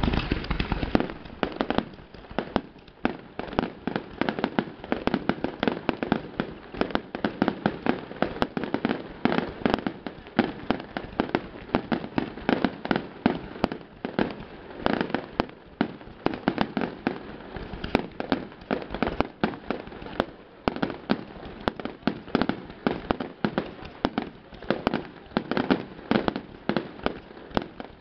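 Aerial fireworks shells exploding in a dense, unbroken barrage of sharp bangs, several a second.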